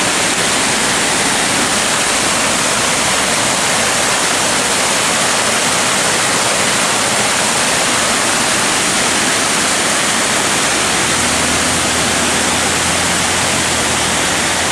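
Water pouring over a millpond's stone spillway: a loud, steady rush of falling water. A faint low hum joins about eleven seconds in.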